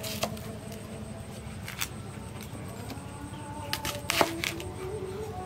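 A hand-forged knife slicing through an onion and striking the wooden chopping block beneath: a few sharp knocks, the loudest about four seconds in.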